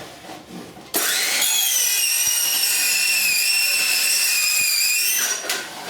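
Electric circular saw cutting a piece of vinyl siding: the motor starts about a second in, its whine climbs quickly to a steady high pitch and holds for about four seconds, then winds down near the end.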